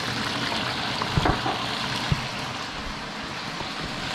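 Sauce and garlic sizzling steadily in hot oil in a wok over a gas burner, with two dull knocks about a second and two seconds in.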